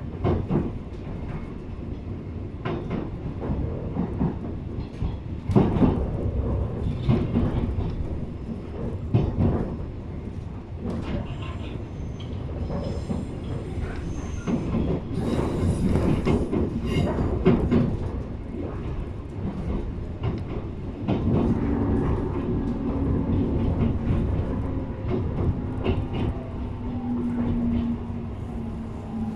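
Running sound inside a JR East 719-series electric train car, a car singled out for its unusual running noise: a steady low rumble with wheels knocking over rail joints. A steady low hum joins in during the last third.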